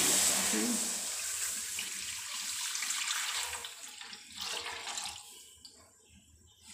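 Milk pouring from a plastic measuring jug into a kadai: a steady splashing stream that grows quieter and stops about five seconds in.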